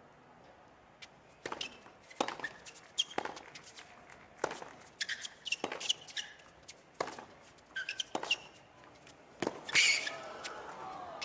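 Tennis serve and baseline rally on a hard court: a string of sharp racket-on-ball strikes and bounces, with short sneaker squeaks between them. The loudest hit comes near the end.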